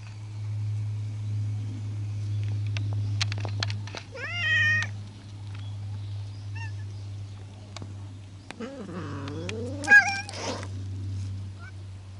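Stray cats meowing at close range: one rising meow about four seconds in and a short chirp, then later a lower, wavering call that ends in a sharp, high meow. A steady low hum runs underneath.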